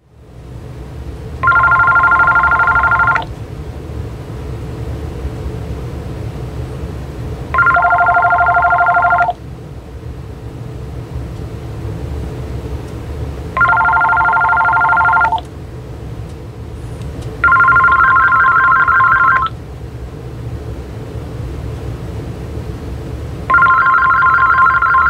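AT&T EL52419 DECT 6.0 cordless phone ringing with an electronic ringtone of rapidly alternating tones: five rings of about two seconds each, a few seconds apart, the last two with a different, higher tune. A steady low hum runs underneath.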